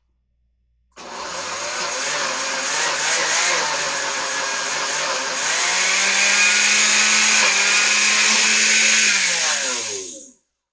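Electric countertop blender motor switched on about a second in and running, stepping up in pitch and loudness a little past halfway, then switched off near the end with its pitch falling as it spins down. The jar's thick load of roasted butternut squash and olive oil is not blending.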